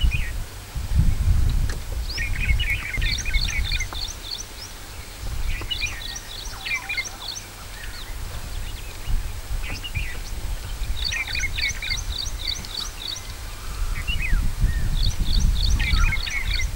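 Forest birds singing: a quick run of short, high notes repeated four times, with lower chirps between. Beneath them is a low rumble that swells about a second in and again near the end.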